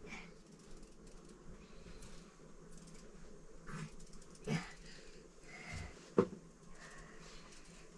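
Knife peeling a potato over a plastic basin: soft scraping with a few light taps, the sharpest about six seconds in.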